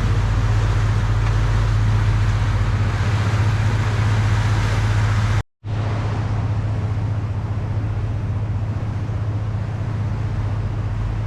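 Engine of a motorised rabelo boat running steadily, a low drone heard on board. It cuts out for an instant about halfway through, then continues slightly quieter.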